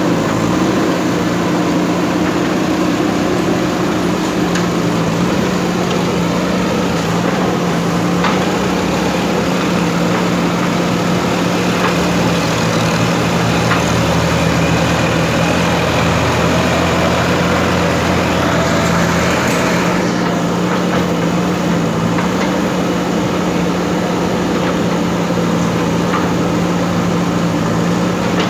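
JCB backhoe loader's diesel engine running steadily as a constant drone. From about twelve to twenty seconds in, a deeper rumble and a faint whine join it, then cut off sharply. There is a single click about eight seconds in.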